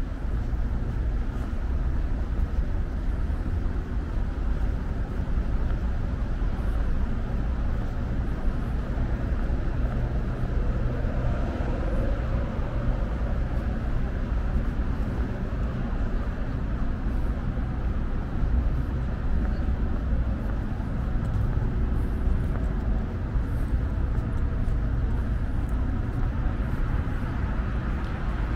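Steady city road traffic: cars passing on a busy street, heard as an even, continuous noise with no single standout event.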